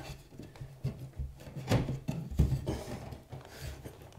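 A drywall patch being pushed and wiggled into a hole in a drywall wall, its edges scraping and bumping against the cut edges of the opening in a string of short scrapes and light knocks.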